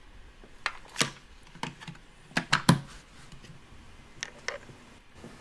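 Light clicks and knocks of hard plastic as hands handle a toy dentist playset, about eight separate taps with two close together about two and a half seconds in.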